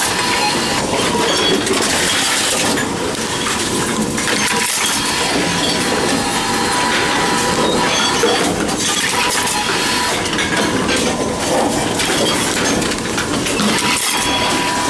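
Envipco CF-1500 reverse vending machines running as they take in and process drink containers: a continuous rattling, clinking clatter of bottles and cans, with a faint steady machine whine.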